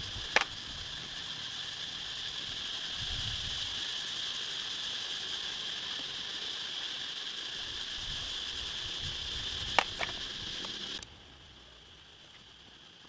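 Sharp clicks of hand tools on metal motorbike engine parts: one about half a second in and two close together near ten seconds, with soft low knocks between. Under them runs a steady high hiss that stops abruptly about eleven seconds in.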